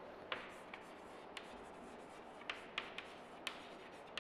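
Chalk writing on a chalkboard: faint scratches and short sharp taps of the chalk as letters are written, coming irregularly about six times.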